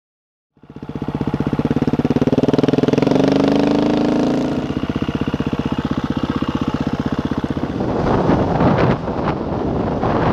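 KTM 350 EXC enduro motorcycle's single-cylinder four-stroke engine, heard from on the bike, rising in pitch as it accelerates for a few seconds and then running steadily. From about three-quarters of the way in, a rough rumble of wind and gravel joins the engine.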